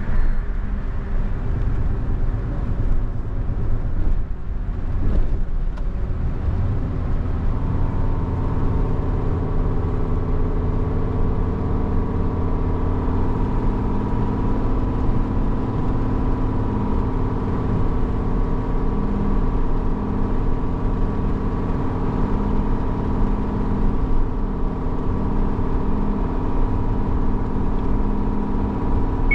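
Heavy truck's diesel engine running steadily at cruising speed, with tyre and road noise, heard from inside the cab.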